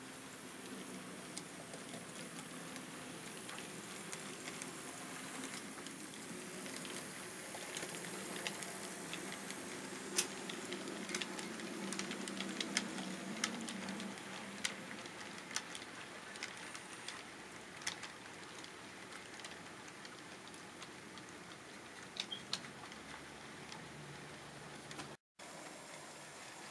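HO scale model steam locomotive and hopper train running past on the layout: a steady hiss and low hum that swell as the train comes closest about halfway through, with scattered sharp clicks from the wheels on the track. The sound cuts out briefly near the end.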